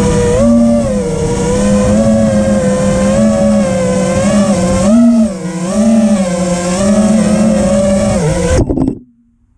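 Five-inch FPV quadcopter's T-Motor Velox V2 2207 1750 kV brushless motors and props, heard from the onboard camera, whining with a pitch that rises and falls again and again with the throttle. The whine cuts off suddenly about nine seconds in as the quad lands.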